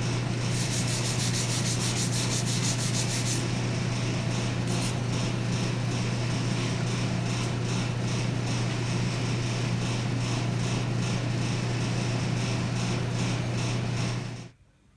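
Steady hum of a coal forge's air blower, with rapid scratching from about half a second to three and a half seconds in as a wire brush scrubs scale off the red-hot steel blade. The sound cuts off just before the end.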